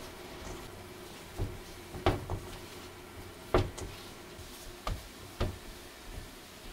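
Hands mixing and kneading rice-flour dough in a stainless steel bowl, with about six sharp knocks of the metal bowl against the steel sink, the loudest about three and a half seconds in.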